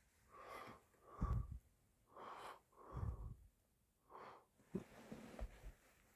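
A person breathing close to the microphone: a series of soft, wheezy breaths about a second apart, with a short click near the end.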